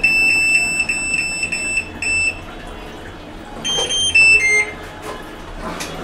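Singer top-loading washing machine's control-panel buzzer beeping: a quick run of high beeps for about two seconds, then a short three-note chime falling in pitch. These are button beeps as the machine is set to drain the water from its drum.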